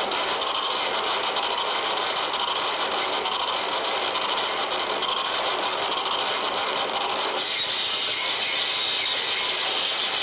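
Live harsh noise music (Japanoise) played on electronics and effects: a dense, continuous wall of hiss and grinding noise with no beat. About seven seconds in it shifts, thinning in the middle and turning brighter and higher.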